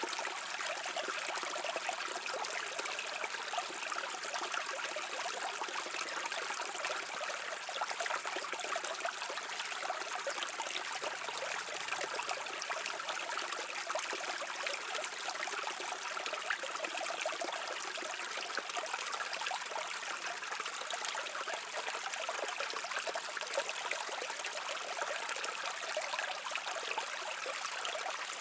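A brook running over rocks, a steady rushing and trickling of water with fine bubbling detail.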